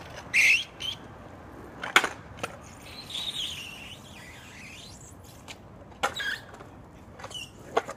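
Stunt scooter on tarmac: a short scraping squeal just under a second in, sharp clacks of the scooter striking the road about two seconds in and again around six seconds, with the wheels rolling and scraping in between.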